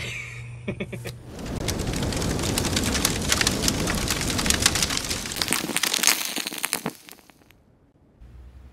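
Crackling fire sound effect for an animated logo intro: a dense mass of pops and crackles that swells in about a second in and cuts off suddenly near the end.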